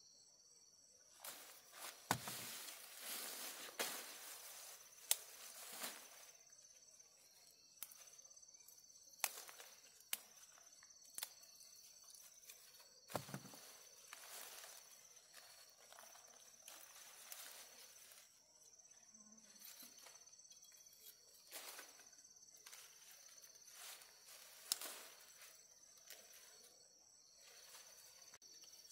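Faint, steady chirring of insects, with scattered clicks and short rustles throughout.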